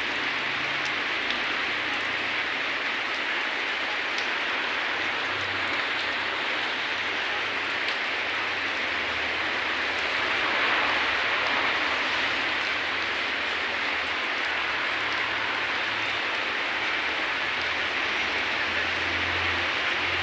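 Steady rain falling and pattering on surfaces, with faint scattered drop ticks; it swells a little about halfway through.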